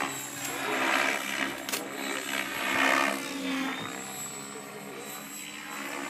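Align T-REX 700E electric RC helicopter with a DFC flybarless rotor head, flying aerobatics overhead. A steady motor and rotor hum is heard, and the rotor-blade whoosh swells twice, about a second and three seconds in.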